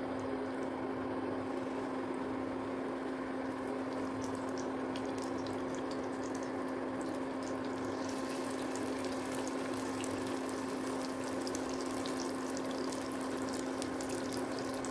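Induction cooktop running with a steady hum under a pan of hot oil; as marinated chicken drumsticks are laid into the oil, it starts crackling and spitting, with the pops growing busier from about halfway through.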